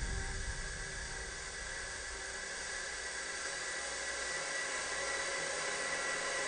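Background music: a sustained electronic drone holding a steady high tone over a soft hiss, fading a little early on and then holding level.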